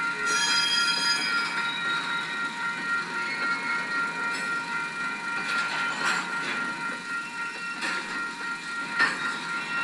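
Freight train of covered hopper cars rolling slowly in reverse, with steady high-pitched wheel squeal throughout and a few sharp clanks about halfway through and near the end.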